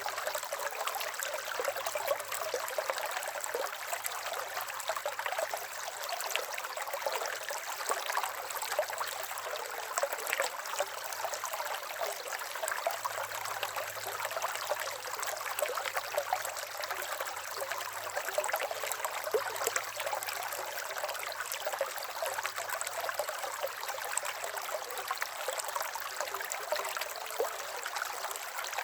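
River water running and trickling steadily over rocks, with a constant rush full of small splashes.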